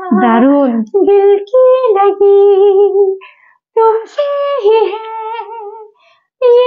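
An older woman singing unaccompanied, holding long notes with vibrato in a fairly high voice, with two short breath pauses between phrases.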